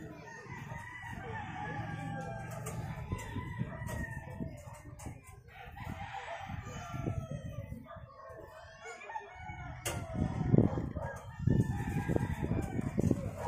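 A rooster crowing in the background. From about ten seconds in, louder rustling and crinkling of a plastic tarpaulin being shifted.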